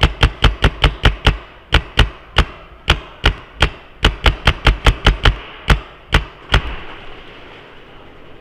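Paintball marker firing at close range: about two dozen sharp shots, each a crack with a low thump, in quick irregular runs of two to four shots a second, stopping about six and a half seconds in.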